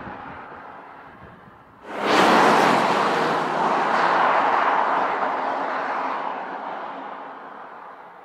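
2018 Porsche Cayenne Turbo, with its twin-turbo V8, passing at speed: a sudden loud rush of tyre and engine noise about two seconds in that slowly fades as the SUV drives away.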